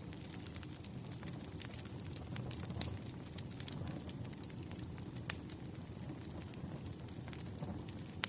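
Wood fire crackling: irregular sharp pops and snaps over a low steady rumble, with one louder pop about five seconds in.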